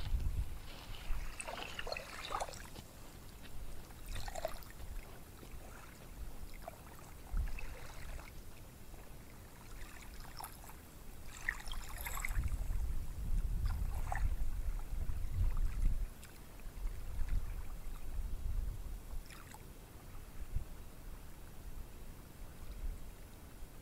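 Ocean surf: small waves breaking and washing onto a sandy beach, an uneven rushing with a deeper rumble that swells for a few seconds about halfway through.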